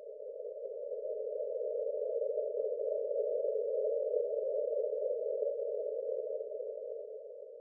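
Breath-pacing sound: a narrow, hum-like band of soft noise that swells up and then fades away over about eight seconds, marking one slow breath of a rhythmic breathing exercise.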